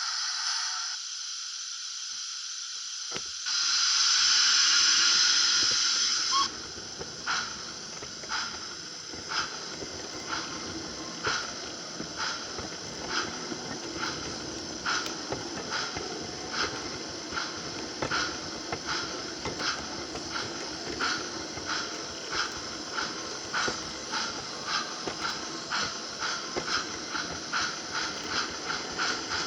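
LGB Stainz G scale model steam locomotive's sound unit hissing steam, with a louder blast of steam for about three seconds. It then starts chuffing in an even beat that slowly quickens as the engine gets under way, over the low rumble of its motor and wheels on the track.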